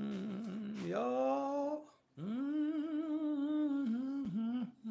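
A person humming a slow spiritual-style melody in long held notes, with a short break about two seconds in.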